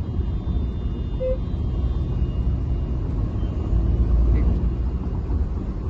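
Steady low rumble of the Hyundai Verna's 1.6 CRDi four-cylinder turbo-diesel and road noise while driving, heard inside the car.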